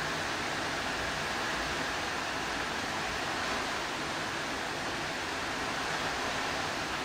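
Torrential rain pouring down steadily as an even, unbroken hiss.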